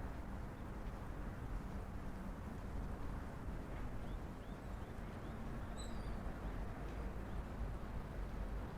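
Steady low hum of distant city traffic, with a few faint short, high chirps from a small bird about halfway through.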